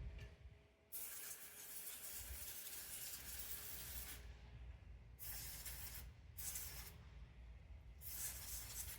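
Brake cleaner spraying in bursts: one long spray of about three seconds, then three short spurts.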